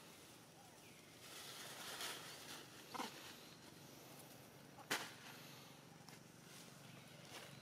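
Quiet outdoor ambience with a soft rustle, a short faint animal call about three seconds in, and a sharp click a little before five seconds, the loudest sound.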